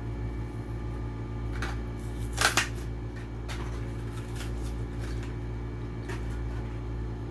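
Cardboard-and-plastic blister pack of a die-cast toy car being torn and pulled open: a few short crackling rustles, the loudest just over two seconds in, over a steady low hum.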